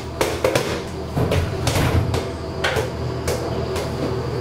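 A series of sharp knocks and clatters inside a steel elevator car, over a steady low hum.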